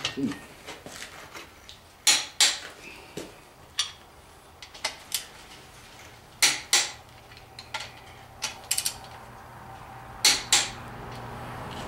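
Click-type torque wrench clicking off as the crankshaft main bearing cap bolts are brought to torque: three sharp double clicks about four seconds apart, with lighter socket and ratchet clicks between.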